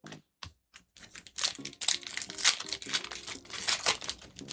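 Crinkling and tearing of a Pokémon booster pack's foil wrapper being handled and opened, starting about a second in as a dense crackle that runs on with louder bursts.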